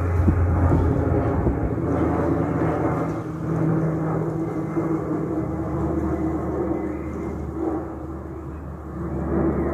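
Twin-engine turboprop airliner climbing out overhead: a steady propeller drone with low humming tones.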